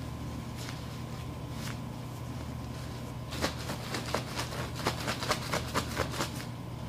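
Paper name cards rustling and rattling inside a cloth drawstring bag as it is shaken hard, a fast run of rustles lasting about three seconds that starts about three seconds in, over a steady low hum.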